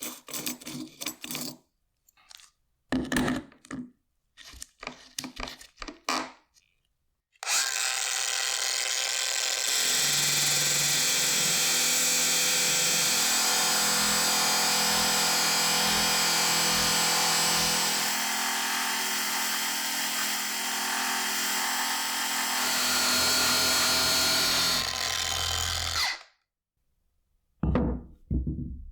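A handheld electric power tool runs for about eighteen seconds on the rusty axe work, its motor pitch shifting a few times before it cuts off suddenly. It is preceded by a string of short clicks and knocks of handling.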